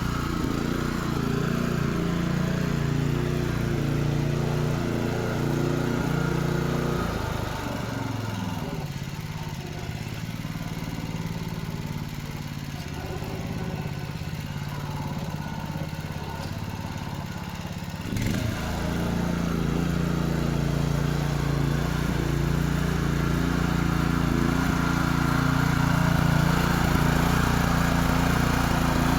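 Small single-cylinder engine of a two-wheel walking tractor running steadily. About seven seconds in, its note drops and weakens, then comes back strongly around eighteen seconds in.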